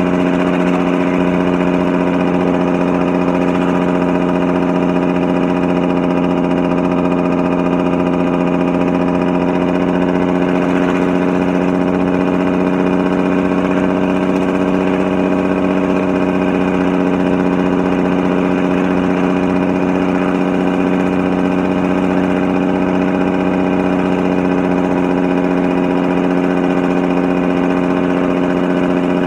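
Jake brake (engine compression brake) on a 400 Big Cam Cummins inline-six diesel, loud and steady at an unchanging pitch, holding back a truck grossing about 77,000 lb down a 7% grade.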